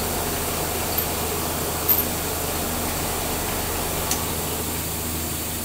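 Vertical milling machine running with a steady low hum, with a few light clicks.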